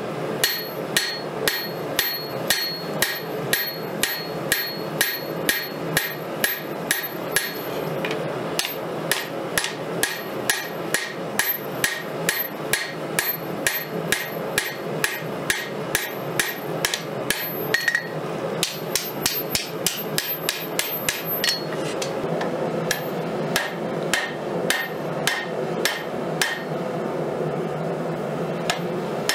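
Forging hammer striking a red-hot steel khopesh blade on an anvil in steady blows about twice a second, each with a bright ringing note from the anvil, over a steady rushing noise. About two-thirds of the way in the ringing stops and the blows turn softer, while the blade is being bent over the anvil horn.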